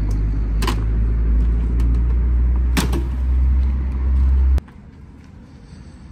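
Low, steady rumble of an idling vehicle engine, with two short sharp knocks of tools or metal parts. The rumble cuts off suddenly about four and a half seconds in.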